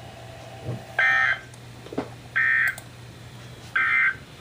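Emergency Alert System end-of-message signal: three short, identical bursts of buzzy two-tone digital data, each under half a second and about a second and a half apart, over a faint steady low hum.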